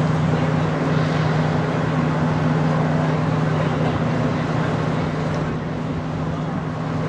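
Steady low hum of a docked cruise ship's machinery over a broad even wash of noise, unchanging throughout.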